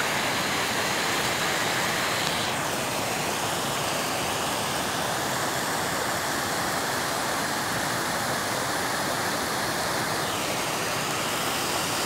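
Water from an overflowing reservoir rushing down a rocky spillway in cascades and running on over the rocks: a steady rush of falling water.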